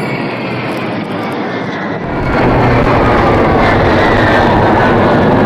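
Jet engines of military aircraft flying over in formation. For the first two seconds the Il-78 tanker and its MiG-29 escorts pass with a faint falling whine. About two seconds in, a louder, steady jet rumble takes over as the Il-80 airborne command post and its two MiG-29 escorts come in.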